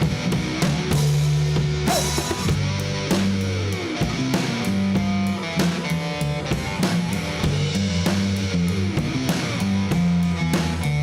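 Blues band playing an instrumental passage: slide guitar gliding up and down in pitch over bass notes and a steady drum-kit beat.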